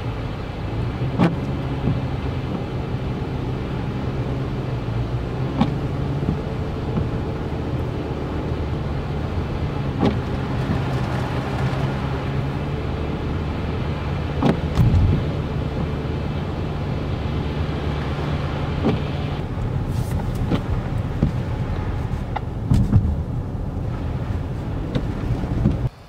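Vehicle driving on a snow- and slush-covered highway: steady engine hum and tyre noise, with a few short knocks along the way.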